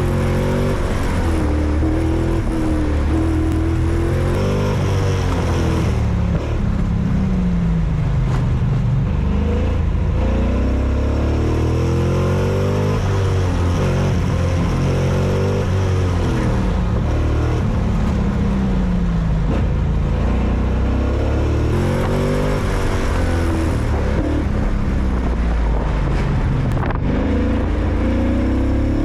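Race car engine being driven hard, its pitch climbing and dropping again every few seconds as it accelerates and slows, over steady road and wind noise.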